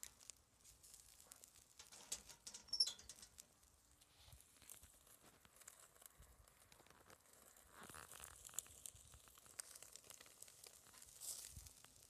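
Faint crackling and popping of a wood fire burning in a metal brazier, with a sharper pop about three seconds in.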